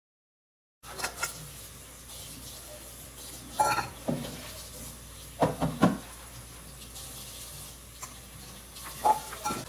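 Stainless-steel mesh sieve knocking and clinking against a stainless mixing bowl while flour is sifted: scattered short metal knocks, the loudest a few seconds in and again about halfway, over a low steady room background.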